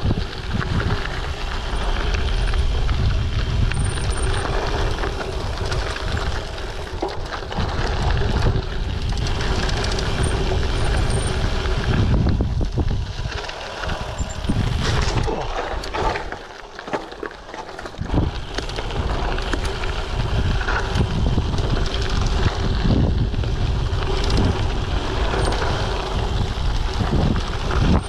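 Wind buffeting an action camera's microphone while a Giant TCX gravel bike on 38 mm WTB Riddler tyres rides a dirt trail, with rumble and frequent knocks and rattles from bumps. The noise drops for a couple of seconds a little past the middle, then picks up again.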